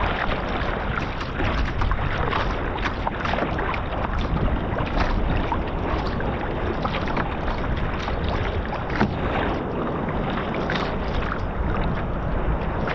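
Stellar S18 G2 sea kayak underway in a force 3–4 wind: steady wind buffeting the microphone with a low rumble, and water splashing and slapping irregularly around the hull and paddle.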